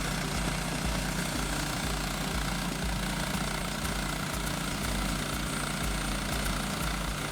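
Frontier OS27 portable band sawmill running steadily, its gas engine driving the band blade as it cuts through a log.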